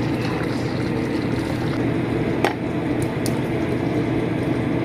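Steady low hum of a kitchen, with one sharp clink of a metal ladle against the pot about halfway through as soup is ladled out.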